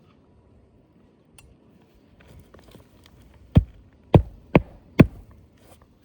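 Roofing hatchet hammering a nail through asphalt shingles: four sharp strikes in quick succession, about half a second apart.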